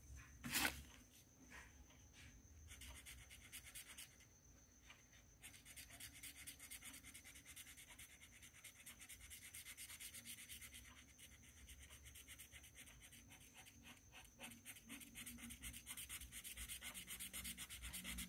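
A sharp tap about half a second in, then a green coloured pencil scratching on the paper of a colouring book in quick back-and-forth shading strokes, steadier from about five seconds in.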